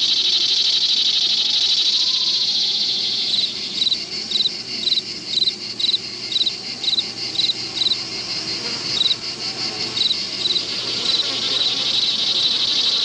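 Insect chorus of crickets, a steady high buzz, with a cricket chirp repeating about twice a second from about three seconds in and dying away near the end.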